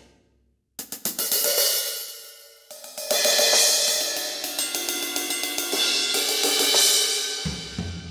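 Medeli MZ928 electronic drum kit's sampled drum and cymbal sounds. After a short pause, a few quick drum hits with cymbal crashes come about a second in, and another crash about three seconds in whose wash rings on. Kick and drum hits start again near the end.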